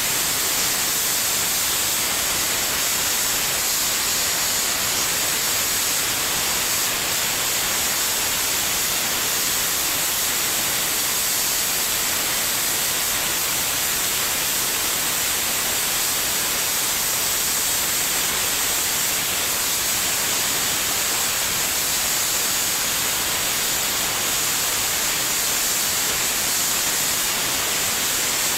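Electric drill spinning a homemade grating blade against dried coconut flesh, a steady, even hiss that does not let up.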